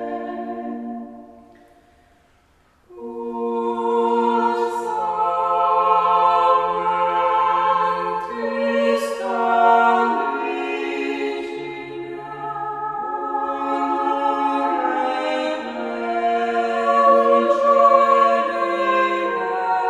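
Choir singing a sacred motet in several voice parts with long held notes. A phrase ends and dies away about a second in, and the next phrase begins about three seconds in.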